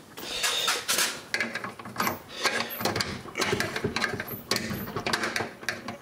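Screwdriver working an old Frigidaire refrigerator's door latch by hand to reset the catch: an irregular run of metal clicks and knocks with scraping.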